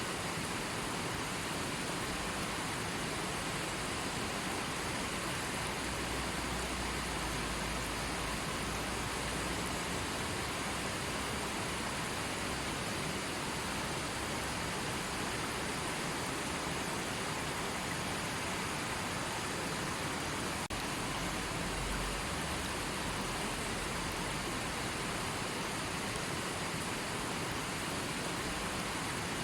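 River water flowing in a steady, even rush, with a faint low rumble about a quarter of the way in and again near the three-quarter mark.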